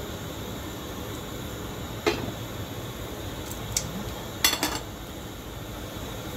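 Metal tongs and a glass pot lid clinking against a stainless steel cooking pot: a sharp clink about two seconds in, a lighter one a little later, and a louder rattle of several clinks midway, over a steady faint hiss.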